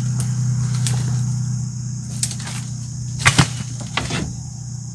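Dry brush and briar stems crackling and snapping as a tire is wrestled out of the undergrowth. There are a handful of sharp cracks, the loudest just over three seconds in, over a steady low hum.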